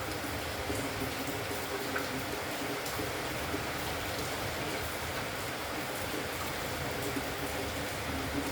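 Steady hiss of background noise, even and unbroken, with no clear dove call standing out.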